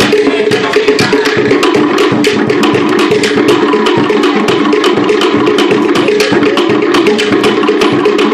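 Cook Islands drumming: a fast, even beat of sharp wooden strikes, typical of pate slit drums, together with a skin drum, played for the dancers.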